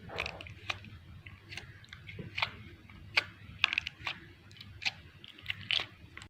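Homemade slime being squeezed and poked, giving off irregular sharp sticky clicks and pops.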